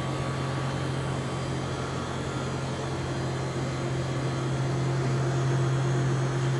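Sharp SG-618-2AN surface grinder running in automatic mode after a cycle start: a steady motor hum with a hiss, getting slightly louder, with a higher tone joining about halfway through.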